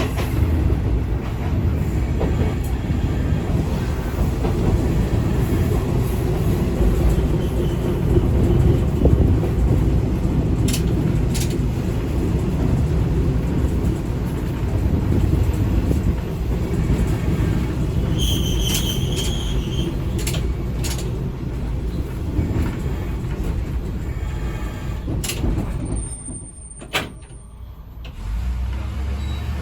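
Ex-JNR KiHa 20-series diesel railcar running, its engine and wheels giving a steady low rumble, with a short high-pitched squeal about two-thirds of the way through. Near the end the rumble drops away as the car comes to a stop, leaving a steady low idle.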